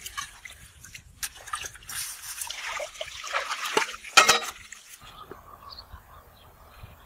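Water splashing and dripping as peeled potatoes are handled and rinsed in water, with a sharp splash about four seconds in. The water sounds stop about five seconds in.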